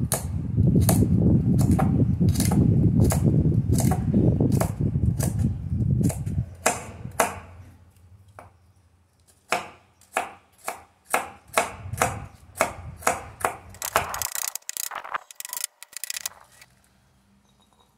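Chef's knife chopping thick cabbage leaf ribs on a wooden cutting board: a long series of crisp cuts, about two to three a second, that stops shortly before the end. A low rumble runs under the first six seconds.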